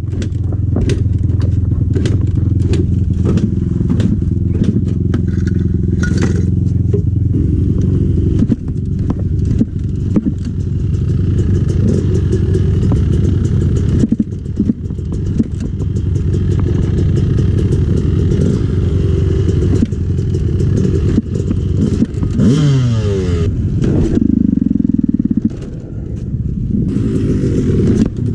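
Two-stroke dirt bike engine running steadily at idle, with some clattering, and a brief blip of revs that falls away a little after 22 seconds.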